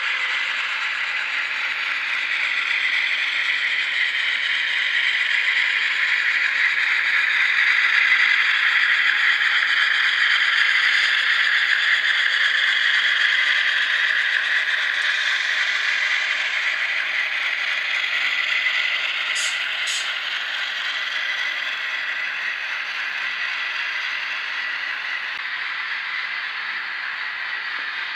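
HO-scale model diesel locomotive and passenger cars running over a trestle: a steady whirr of the locomotive's motor and gears with the rattle of wheels on the track. It grows louder as the train passes close, about a third of the way in, then slowly fades. Two sharp clicks come about two-thirds of the way in.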